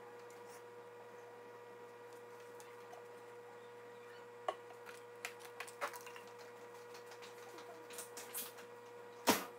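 Steady low electrical hum with a constant tone, with scattered faint clicks and ticks in the second half and one louder click near the end.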